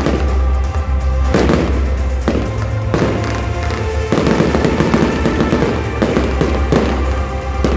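Fireworks display: several sharp shell bursts, then a stretch of dense crackling about four seconds in, over loud music with a deep bass.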